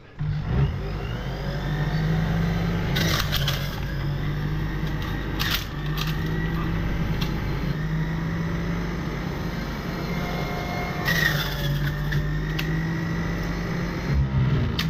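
Electric juicer's motor running as it juices chunks of watermelon: a steady motor hum that wavers a little with the load, with a few sharp knocks as pieces go through. It switches off shortly before the end.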